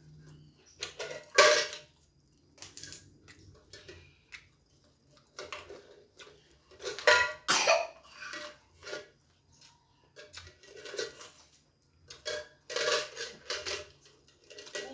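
Coins clinking and rattling in a cylindrical coin bank and on the floor as a small child plays with them, in scattered bursts with quiet gaps between.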